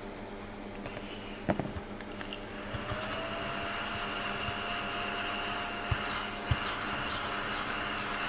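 Small battery-powered mini desk vacuum switched on about three seconds in, its motor spinning up to a steady whine and running while it is pressed over a scratched-off card to pick up the shavings, with poor suction. A knock comes just before it starts.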